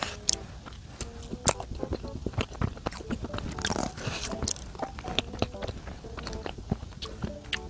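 Close-miked chewing and wet mouth clicks of someone eating a soft bread pudding with chewy rice cake pieces, with a metal spoon scraping inside a paper cup.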